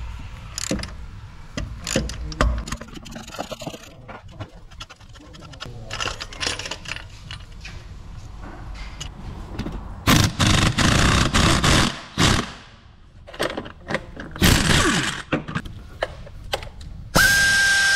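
Ratchet and hand-tool work on a Z18XE engine: clicks, knocks and metal scraping as the ribbed-belt tensioner bolt is undone and the tensioner lifted out, with two loud rattling stretches in the middle. Near the end a power drill starts and runs with a steady whine.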